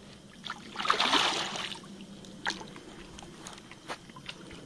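Water splashing for about a second, about a second in, as a small hooked carp is played at the bank; a few faint clicks follow.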